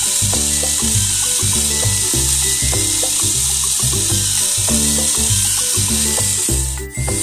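Background music with a steady, rhythmic bass line, over a continuous hiss. Near the end it briefly drops out.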